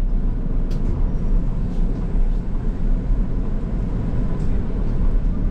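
Steady low rumble of a bus's engine and tyres, heard from inside the cabin as it drives along the road.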